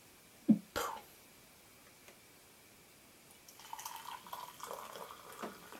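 Hot water poured from a kettle into a mug, a trickling fill starting about three and a half seconds in and lasting about two seconds. Two short knocks come shortly before, near the start.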